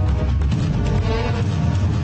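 News channel theme music with a heavy, steady low end, playing under the bulletin's closing graphics.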